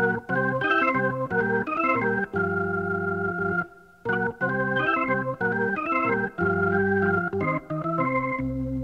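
Organ starting a blues number from silence, playing runs of quick stepping notes and held chords. It breaks off briefly a little under four seconds in, then comes back.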